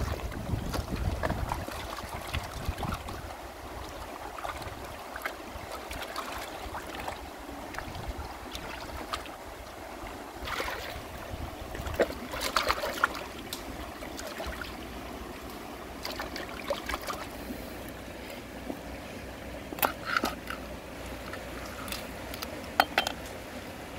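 Shallow river running steadily over stones, with water poured from a basin into a pot at the start and splashing as a fish is washed by hand in the pot. Later come scattered sharp clicks and scrapes as the fish is handled and cut with a cleaver on a metal pan.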